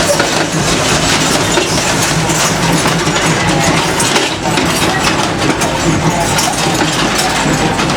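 Steady rumble and rail noise of a moving passenger train, heard from aboard a coach.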